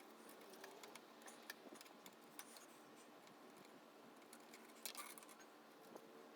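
Faint, scattered small metallic clicks and taps from hand work fitting a roller chain onto a mini bike, with a small cluster of clicks about five seconds in.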